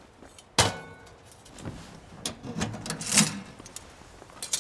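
Cooking gear being handled: one sharp metallic clank with a short ring about half a second in, then several lighter knocks and clinks, the loudest about three seconds in.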